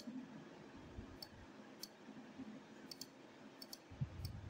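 Computer mouse buttons clicking quietly, a handful of sharp clicks, some in quick pairs, as shapes are selected and dragged. Near the end there is a soft low bump.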